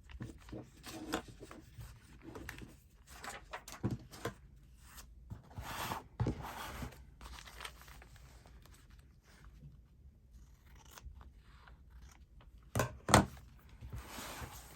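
Scissors snipping through paper in short, irregular cuts, with paper rustling as it is handled. A louder sharp knock comes near the end.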